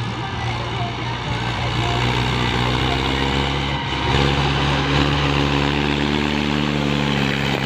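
Mahindra 575 tractor's four-cylinder diesel engine pulling a fully loaded dumper trolley. Its pitch climbs over the first few seconds and it grows louder about halfway through as the tractor comes close.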